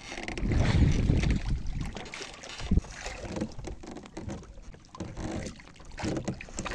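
Sea water lapping and sloshing against the hull of a small fishing boat, with wind buffeting the microphone and a single knock about three seconds in.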